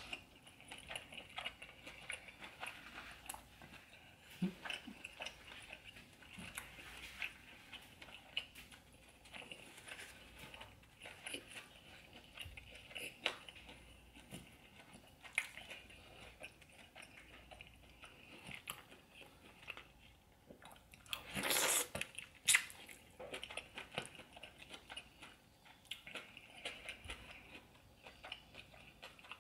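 Close-up eating sounds of a seafood boil being chewed: steady chewing with many small wet mouth clicks, and one louder noisy sound about a second long roughly two-thirds of the way through.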